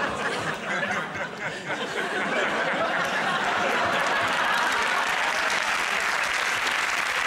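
Studio audience laughing after a joke, breaking into steady applause about three seconds in.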